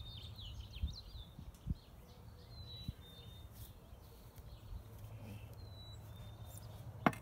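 Small birds chirping in short, high calls, with a low wind-like rumble on the microphone. There are a few soft thumps in the first three seconds and one sharp click near the end.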